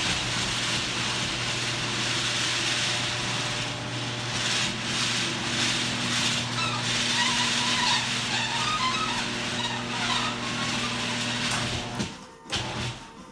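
Garage door opener running for about twelve seconds, its motor giving a steady hum under the noise of the door travelling along its tracks, then stopping suddenly.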